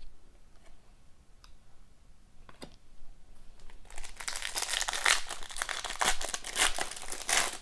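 Foil wrapper of an Upper Deck Ice hockey card pack being torn open and crinkled by hand. The crinkling starts about four seconds in and gets much louder, after a few faint ticks of cards being handled.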